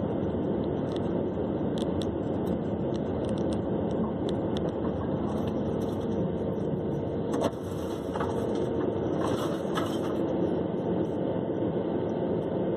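Steady road and engine noise of a vehicle driving, heard from inside the cab, with scattered light clicks and a sharp knock about seven seconds in.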